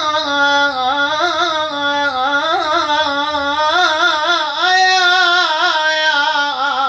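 A man singing one long, unbroken vocal line in Iraqi folk style, its pitch quavering through dense ornaments, with no words.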